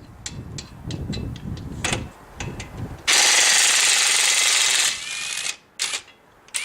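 Ridgid 18V brushless half-inch cordless impact wrench hammering on a lug nut for about two seconds, loud and rattling. Before it come scattered clicks and clunks of metal parts being handled, and after it a few more clicks.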